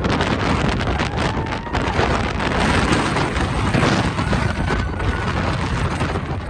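Strong wind buffeting the microphone: a loud, unbroken rush of noise, heavy in the low end, that swells and eases with the gusts.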